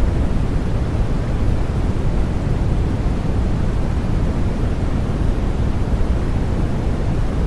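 Steady white noise for helping a baby sleep: an even, unbroken hiss, deepest and strongest in the low end and softer toward the top, without any change.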